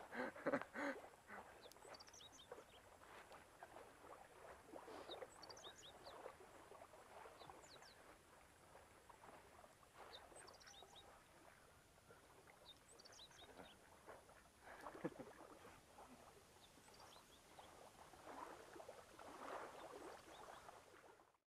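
Faint lakeside ambience: soft washes of water lapping that swell and fade every few seconds, with scattered short high chirps.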